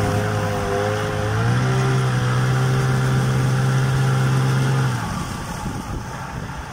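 Small boat's outboard motor running steadily, its pitch stepping up as it speeds up about a second in, then dropping back and fading near the end.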